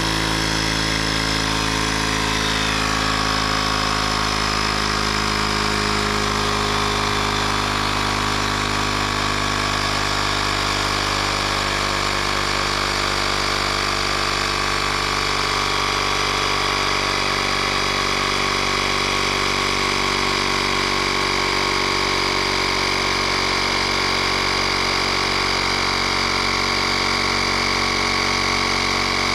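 ShockFlo cordless tire inflator's small electric piston compressor running steadily under load, pumping up a bicycle tire as the pressure climbs toward its 50 psi set point.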